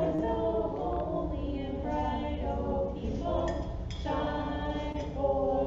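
Voices singing a short, simple song unaccompanied, held notes moving from pitch to pitch.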